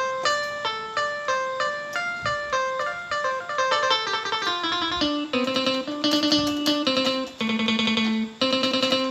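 Casio CTK-4400 electronic keyboard playing a melody in a plucked, guitar-like voice, short single notes about three a second. About five seconds in it turns fuller and brighter, with a steady rhythmic accompaniment under the tune.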